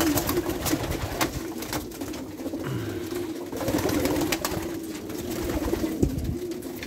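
A loft full of racing pigeons cooing over one another in a continuous, wavering drone, with scattered short flutters and clicks of wings as a bird flaps past.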